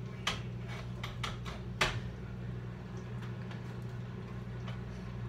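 Kitchen handling sounds: about six light knocks and clinks of cookware and utensils in the first two seconds, the last the loudest, over a steady low hum.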